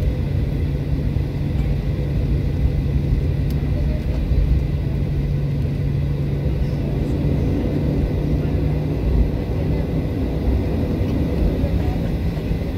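Cabin noise of a Boeing 737-800 taxiing: its CFM56-7B jet engines running at low taxi power with a steady hum, under a constant low rumble of the aircraft rolling along the taxiway.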